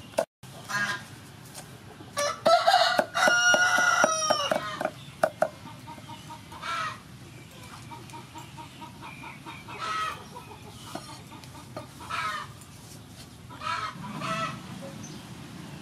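A rooster crows once about two seconds in, a call of about two seconds and the loudest sound here, and chickens cluck now and then after it. Sharp knocks of a cleaver chopping chili and garlic on a wooden chopping block come near the start and again around five seconds in.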